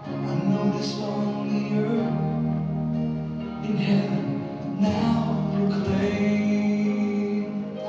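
A song playing: a singing voice over held notes of accompaniment.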